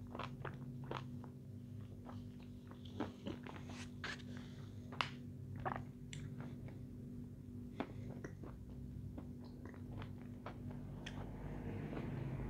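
Close-miked chewing: wet mouth noises with small crunches and sharp clicks scattered irregularly, over a steady low hum.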